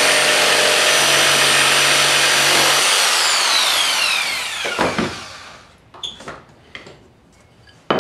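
Corded jigsaw cutting a curved notch into a wooden board, then switched off about three seconds in so its motor winds down with a falling whine. A few light knocks of the board being handled follow, and a sharp knock comes at the very end.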